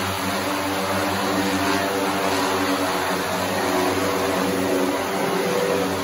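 DJI Matrice 300 quadcopter's four propellers flying low, a steady hum of stacked tones over a rushing airflow, the pitch wavering slightly as the drone manoeuvres. The sound rings back off the concrete of an enclosed car park.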